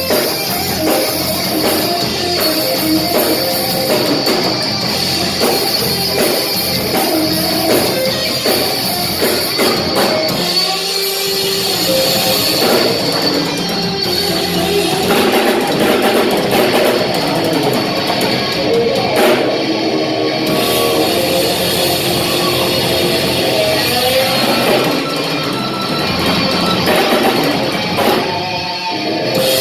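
Rock band playing, with electric guitar and drum kit.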